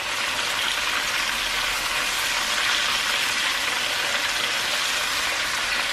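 Chicken drumsticks sizzling steadily as they brown in oil in an enamelled pan.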